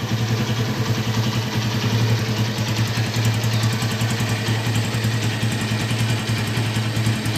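Honda Tiger Revo's 200 cc single-cylinder four-stroke engine idling steadily.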